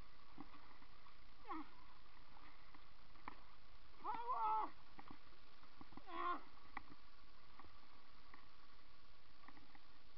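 Shallow river water rushing steadily over rocks. Three short, high-pitched cries sound over it; the second, about four seconds in, is the loudest.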